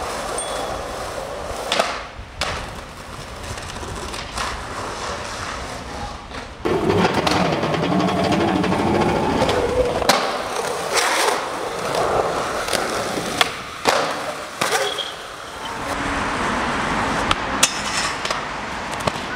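Skateboard wheels rolling over pavement and concrete, broken by a series of sharp cracks and clacks from boards being popped, landing and clattering down.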